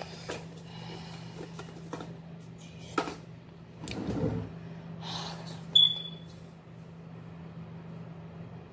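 A small paper bandage packet being handled, giving a few light clicks and rustles over a steady low hum. About six seconds in there is one short, sharp high squeak.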